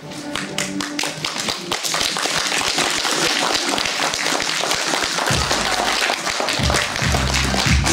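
Audience applauding, the clapping starting and building up over faint music. Low notes of the music come in after about five seconds and grow louder.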